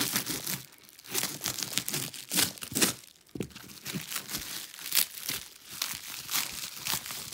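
Black plastic shipping wrap and shrink-wrap on a cardboard guitar box crinkling and tearing as it is cut and pulled open, in uneven crackles with a couple of brief pauses.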